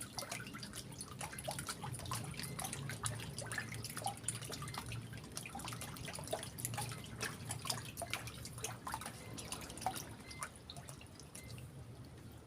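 Water dripping and splashing in many small, irregular drops over a steady low hum, thinning out near the end.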